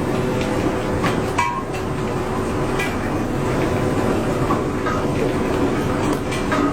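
Machinery running with a steady rumble, faint steady hum tones and scattered light clicks and knocks.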